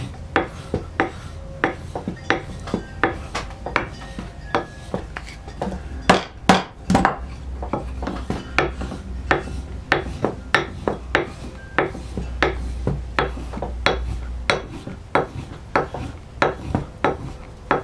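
Stropping a hewing hatchet's steel bevel with a tulip poplar wood paddle charged with polishing compound: short, brisk scraping strokes of wood on steel, about two to three a second, each pushed away from the edge to polish the freshly honed edge.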